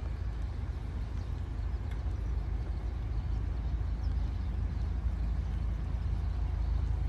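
Low rumble of an approaching CSX freight train's diesel locomotives, building slowly as the train nears the crossing.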